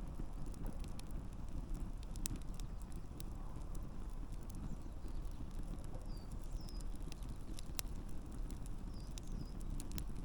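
Wood campfire burning with a steady low rumble and scattered sharp crackles and pops from the logs. A few short high chirps come near the middle and again near the end.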